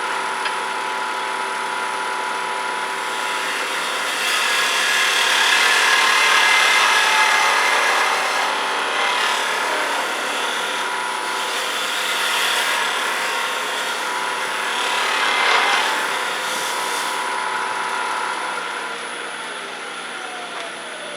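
Grizzly wood lathe running at about 2100 rpm while a turning tool cuts a spinning sweet gum blank: a steady motor whine under a scraping cutting noise that swells and fades as the tool moves, loudest from about four to eight seconds in. Near the end the cutting stops and a tone falls in pitch as the lathe slows.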